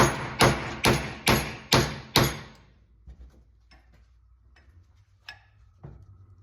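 Hammer striking a punch to drive a worn, knurled pin out of a 1966 Chevrolet C10 door hinge: six ringing metal-on-metal blows about two a second, then a few light taps and clicks.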